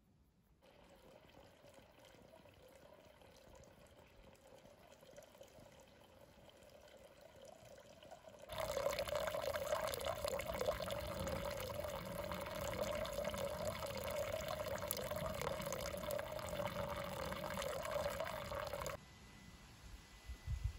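A thin stream of water pouring from a pipe spout into a small pool, a steady splashing trickle with a clear ringing note in it. It starts faintly, becomes much louder about eight seconds in, and stops abruptly near the end.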